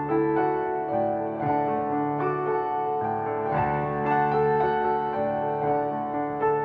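Background piano music: slow, gentle notes with sustained chords.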